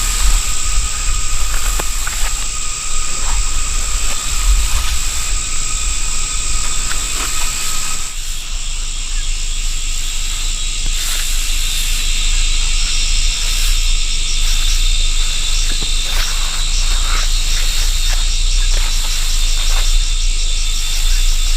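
Insects chirping in steady high tones, joined about halfway by a fast pulsing trill, over a steady low rumble.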